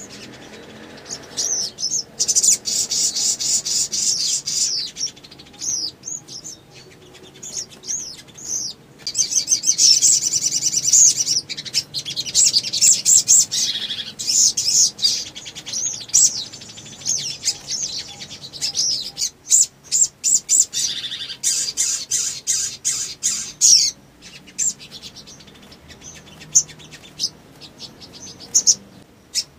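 Male olive-backed sunbird singing long runs of rapid, high-pitched chirping trills, in several bursts with short pauses between them.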